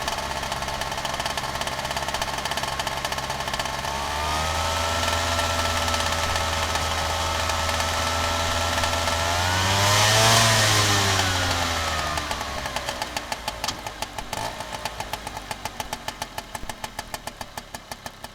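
Vespa scooter engine running while riding. About four seconds in, its pitch steps up and holds, then swells to its loudest around ten seconds as the tones bend. It then fades into a slowing, regular pulsing as the scooter winds down, and cuts off at the end.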